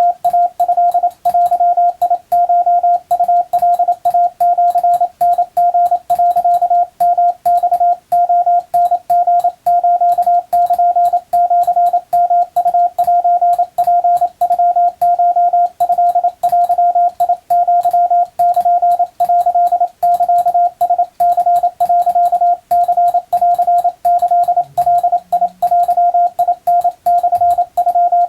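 Morse code (CW) tone keyed in a fast, continuous stream of dots and dashes: a single steady pitch switching on and off, with short gaps between characters.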